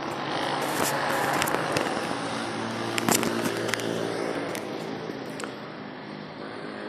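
Wired clip-on microphone being handled close up, giving a scattering of sharp clicks and crackles over steady background noise.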